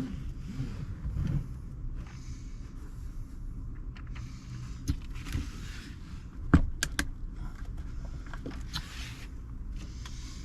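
Metal parts and tools being handled while fitting a car seatbelt: scattered sharp clicks and knocks, the loudest about two-thirds of the way in, with short scraping sounds, over a steady low rumble.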